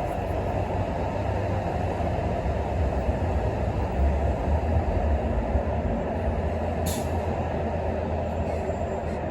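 Steady low rumbling background noise, with one brief sharp click about seven seconds in.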